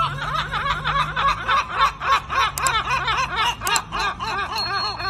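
A large gull's long call: a fast series of harsh, laughing notes repeated several times a second.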